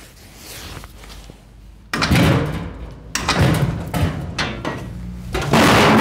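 Metal rattling and scraping as a steel propane tank hung from a rope hoist is let down into an oil drum. It starts suddenly about two seconds in, comes in several surges, and is loudest near the end.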